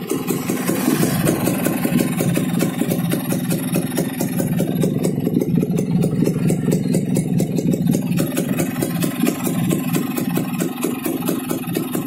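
Kawasaki HD3's standard-bore two-stroke single-cylinder engine running steadily at idle, with an even pulsing beat.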